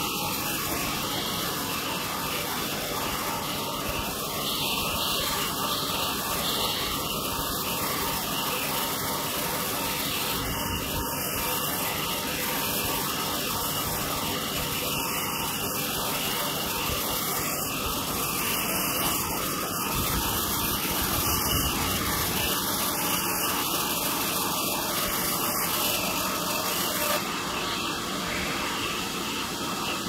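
Horizontal trolley bandsaw mill running with its blade cutting lengthwise through a log: a steady, unbroken machine noise.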